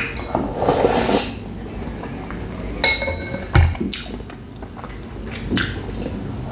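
Soup slurped from a metal spoon, then chewing; about three seconds in the spoon clinks with a short ring against the ceramic soup bowl, followed by a soft knock.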